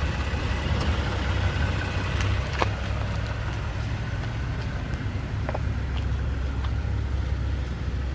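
Toyota Tacoma's V6 engine idling steadily as a low hum, with a few faint clicks over it.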